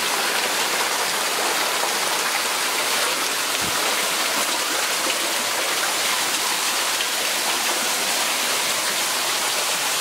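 Steady rush of a waterfall: water streaming down from a rock overhang and splashing onto the rocks and shallow pool below, sounding much like heavy rain.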